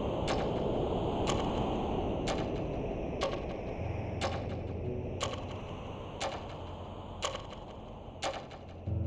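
A clock ticking steadily about once a second over a low, sustained musical drone in the film score.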